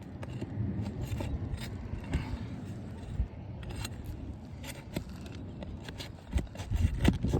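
A metal tool prying a roofing nail out from under aged asphalt shingles: scraping and clicking of metal against the shingles, with a quick run of sharper clicks near the end.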